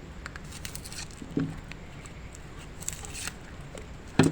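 Shallots being peeled with a small knife: faint scraping and tearing of the dry skins, with a couple of soft knocks.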